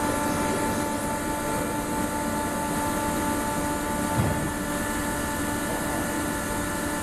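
Industrial machinery running steadily: a constant mechanical hum with several steady whining tones over a noisy background, and a brief low thump about four seconds in.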